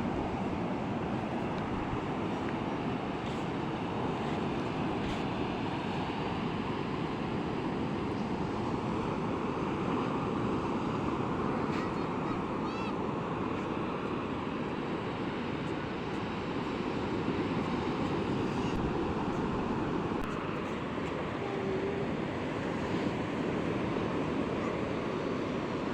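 Sea surf washing continuously onto a beach, a steady rushing of waves with no clear rhythm of separate breakers.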